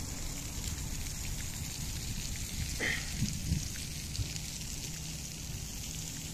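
Outdoor park ambience: a steady rain-like hiss over a low rumble, with a short high chirp about three seconds in and a couple of soft thumps just after.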